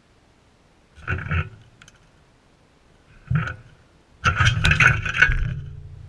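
Sulphur-crested cockatoo scraping and bumping against the camera at the feeding dish, in three rough bouts: a short one about a second in, a shorter one after three seconds, and a longer, loudest one toward the end.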